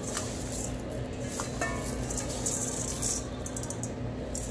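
Dry uncooked rice grains rustling and pattering as they are scooped with a measuring cup from a stainless steel bowl, in short bursts. A steady low hum runs underneath.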